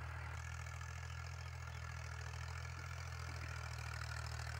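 Ghazi tractor's diesel engine running steadily at a distance while it pulls an eleven-tine cultivator through the field, a low, even hum.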